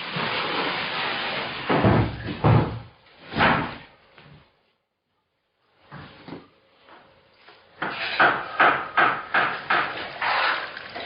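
A stretch of scraping noise, then a few heavy knocks; after a short silent break, a quick run of sharp knocks and clicks.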